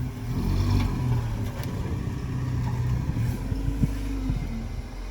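Engine of a six-wheeled all-terrain vehicle running steadily, its pitch shifting a little, with a few short knocks near the end.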